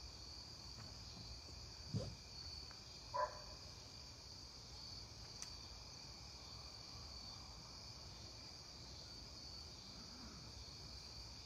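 Faint, steady high-pitched chorus of crickets, with two brief bumps about two and three seconds in.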